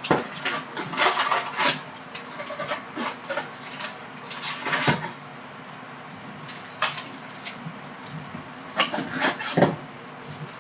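Trading-card packaging being handled and torn open: irregular crinkling and rustling of foil pack wrappers and cardboard in bursts, loudest about a second in, around the middle and near the end.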